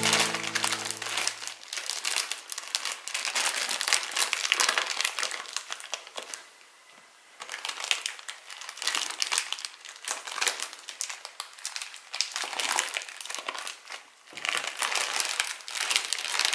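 Plastic zip-lock bag crinkling as it is squeezed and handled, in irregular bursts with a short lull about halfway through.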